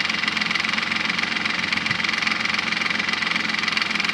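Nissan Maxima's 3.5-litre V6 idling with Motor Medic flush in the oil, a steady, fast, even ticking running through it: the excessive lifter noise the owner is trying to quiet.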